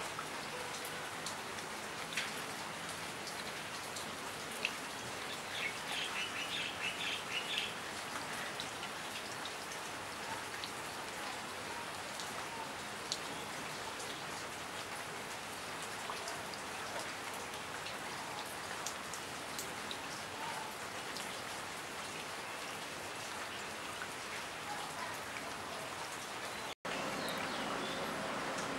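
Steady rain, with scattered drops ticking on wet leaves; a bird gives a quick run of short chirps about six seconds in. Near the end the sound cuts out for an instant and comes back as slightly louder rain.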